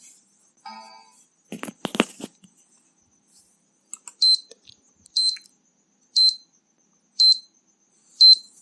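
Countdown timer sound effect in a PowerPoint slide show: short, high electronic beeps ticking off the seconds, one each second through the second half. Earlier there is a brief chime-like tone and a quick cluster of clicks.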